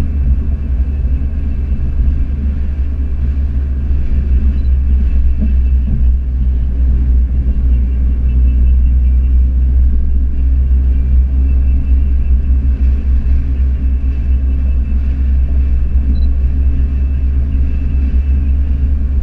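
Car engine and road noise heard from inside the cabin while driving at a steady pace: a constant deep rumble with no revving.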